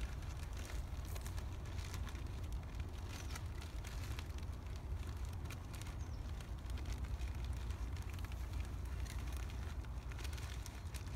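Clear plastic bag crinkling and rustling in irregular crackles as it is worked over leafy willow branches, over a steady low rumble of wind on the microphone.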